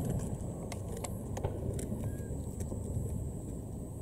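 Lull in a fireworks display: the echo of an aerial shell's bang dies away at the start, leaving a steady low outdoor rumble with faint scattered pops from the distant show.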